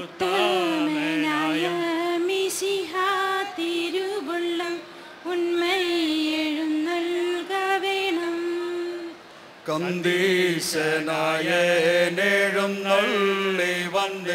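A group of men and women singing together into microphones, with long held, wavering notes and short breaks between phrases about five and about nine seconds in.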